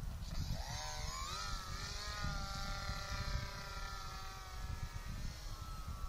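Radio-controlled model plane's motor and propeller whining, rising in pitch about a second in, then holding steady and fading near the end as the plane climbs away.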